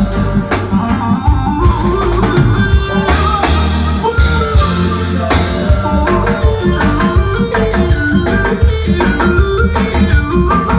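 Live reggae band playing an instrumental passage: drum kit and guitar with a melodic line stepping over a steady beat, no singing.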